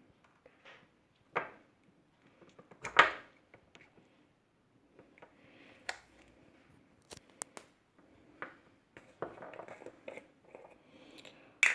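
Half a lemon being squeezed by hand into a bowl of vinegar, amid scattered clicks and knocks of kitchen handling; the loudest knock comes about three seconds in.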